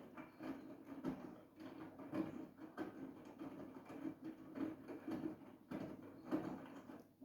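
Siemens iQ700 washing machine drum turning, with the laundry and water sloshing and thudding in irregular strokes a few times a second. It stops abruptly near the end as the drum halts.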